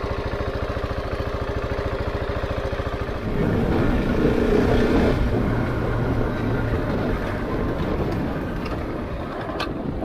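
Husqvarna 701's single-cylinder engine idling with an even pulsing beat, then opened up about three seconds in as the motorcycle pulls away and keeps running under throttle.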